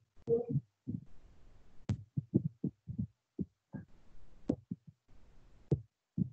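Computer mouse and keyboard handling over an online-meeting audio line: irregular soft thumps with three sharp clicks spread through it.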